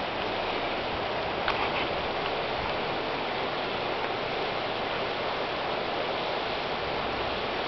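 Shallow river rushing over a rocky riffle: a steady rush of water, with one short click about a second and a half in.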